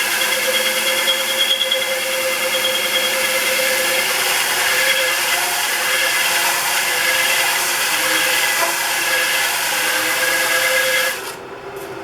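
Wood lathe running at about 570 RPM while a flat MDF sanding board with 120-grit paper is pressed against the face of a spinning glued-up ring of wood segments: a steady sanding hiss over the lathe's hum, flattening the segment faces. The sanding hiss stops abruptly about eleven seconds in.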